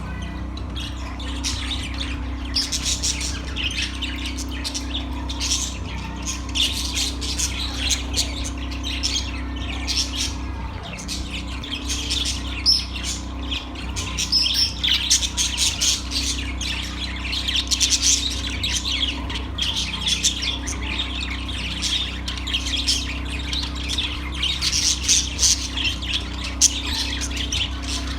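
Budgerigars chirping and squawking in a steady, dense stream of short high calls, over a steady low hum.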